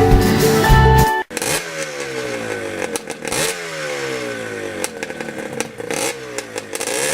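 Guitar music that cuts off about a second in, then a motorcycle engine revved again and again, its pitch falling away after each rev.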